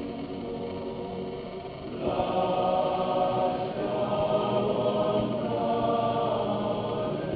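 A choir of voices singing in held notes, swelling louder about two seconds in.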